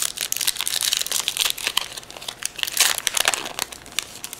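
Foil wrapper of a Pokémon trading card booster pack crinkling as it is torn open by hand: a dense, continuous run of sharp crackles with a few louder peaks.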